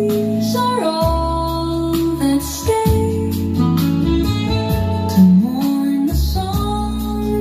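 A song with singing, guitar and a deep bass line, played through a JBL PartyBox 120 and LD Systems CURV 500 ES speaker setup in a sound test.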